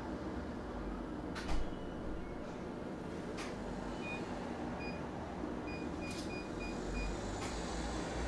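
Digital door lock keypad beeping faintly as its buttons are pressed: about seven short high beeps in the second half, after a sharp knock and a couple of clicks, over a steady low hum.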